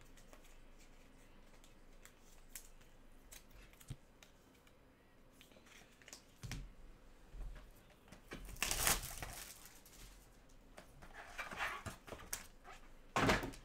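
Faint scattered clicks, then crinkling and tearing of a silver foil trading-card wrapper being opened, loudest about nine seconds in and again near the end.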